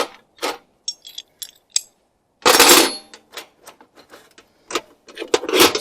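Loose metal air-tool parts, chisels and bits clinking and knocking together as they are handled in a metal toolbox, with a louder clattering rattle of metal pieces about two and a half seconds in.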